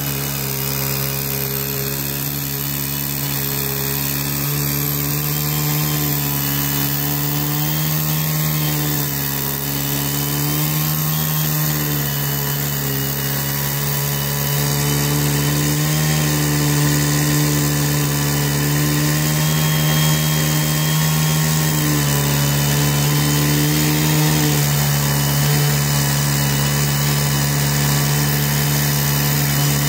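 Two-stroke chainsaw running flat out in a chainsaw mill, ripping lengthwise through a large log; the engine note sags slightly under the load of the cut and recovers, several times over.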